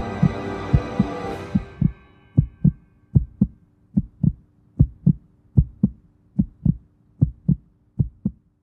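Heartbeat sound effect: paired low thumps, lub-dub, about 75 beats a minute. A dark music drone under it fades out in the first two seconds, leaving the heartbeat alone over a faint hum.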